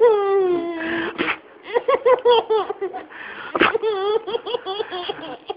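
A baby laughing: a long falling high-pitched note at the start, then runs of short, high-pitched laughs.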